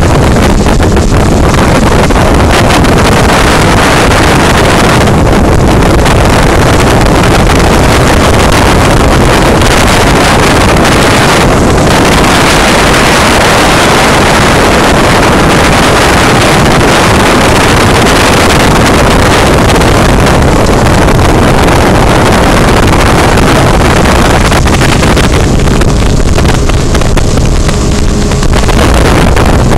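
Loud, steady wind rumble buffeting a phone's microphone aboard a moving motor raft, with the boat's motor and rushing water blended in beneath. The noise changes character abruptly a few times where the footage is cut.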